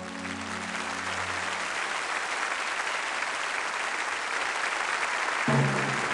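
Audience applauding as the last held chord of the song fades out in the first couple of seconds. The applause keeps building, and near the end new low, steady music comes in under it.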